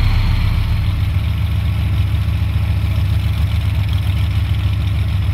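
A big engine idling with a deep, steady rumble.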